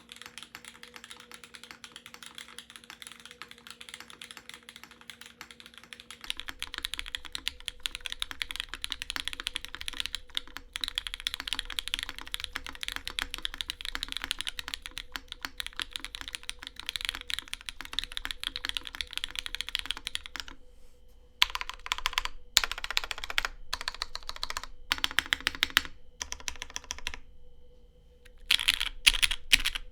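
Fast typing on a Matrix 2.0add mechanical keyboard with broken-in Hyperglide Cherry MX Black linear switches, a full aluminium plate, no foam and GMK keycaps: a dense, continuous patter of keystrokes. About six seconds in the sound becomes closer and fuller as the recording switches from the phone's mic to a dedicated microphone. In the last third the typing comes in short bursts with pauses between them.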